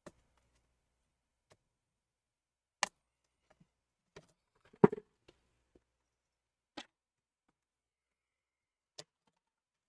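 Scattered faint clicks and light knocks of hands handling a laptop's internal parts while working a tight CPU fan connector loose, with a louder cluster of knocks about five seconds in.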